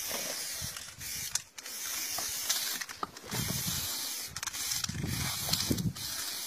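Aerosol spray-paint can hissing in short bursts as letters are sprayed onto a wall, cutting out briefly between strokes.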